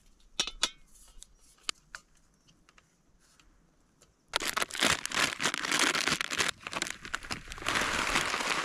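A few faint clicks as a screw-on gas canister is fitted to a camping stove. From about halfway in, loud, continuous crinkling and rustling of a plastic noodle packet and a foil food pouch as the packet is opened and its contents poured into the pouch.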